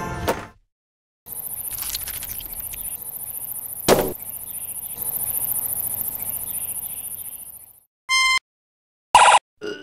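A sequence of separate sound effects: a steady high-pitched rapid chirring that runs for several seconds with a single sharp click partway through, then three short pitched beeps near the end.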